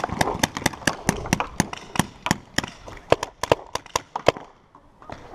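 Paintball markers firing in rapid strings of sharp pops, about five shots a second, stopping abruptly about four seconds in.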